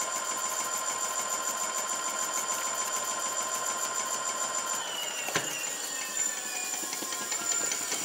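48V 500W e-bike hub motor in a 700C wheel, spinning unloaded under throttle with a steady electric whine. About five seconds in, the pitch starts falling as the motor slows, with a single click.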